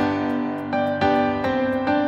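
Background instrumental music: a gentle melody of struck notes.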